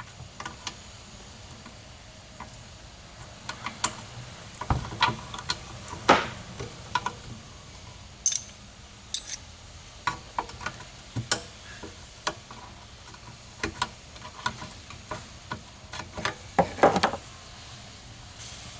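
Irregular clicks, clinks and knocks of hand tools and small metal engine parts being handled, with a louder cluster of rattling near the end.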